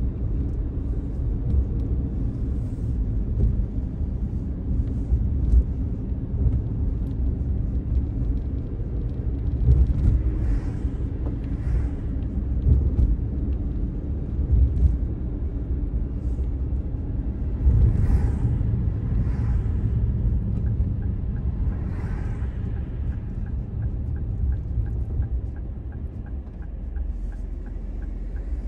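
Low, steady rumble of a car's engine and tyres heard from inside the cabin while driving, with a few brief swells. In the last several seconds, as the car slows toward an intersection, a quiet, regular ticking comes in, like the turn-signal indicator clicking.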